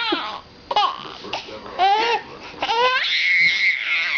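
Seven-month-old baby laughing and squealing in short pitched bursts.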